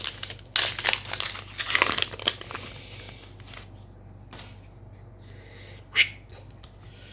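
Crinkling of a foil trading-card booster pack wrapper as it is handled and torn open. The crackling is dense for the first couple of seconds and then eases to a light rustle, with a sharp click about six seconds in.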